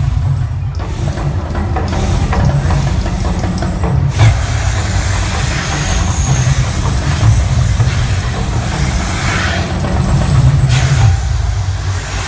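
Gas-fired flame jets of the Mirage volcano show erupting in a rushing whoosh over a continuous deep low rumble; the rush grows much stronger about four seconds in as the big fireballs go up.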